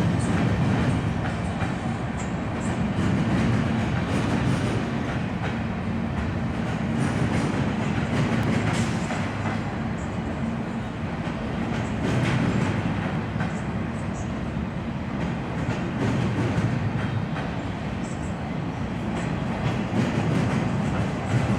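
Train or metro car running steadily: a continuous low rumble with scattered light clicks and squeaks from the wheels and car body.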